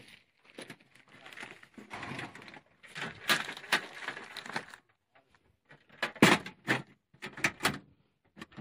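Footsteps on sandy ground for the first few seconds, then several sharp knocks and clunks about six to eight seconds in.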